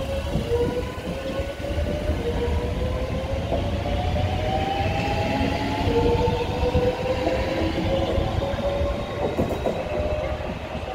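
Two coupled Class 465 electric multiple units pulling away from a station platform: their traction motors give a whine that rises in pitch as the train gathers speed, over the rumble and rattle of wheels on the track.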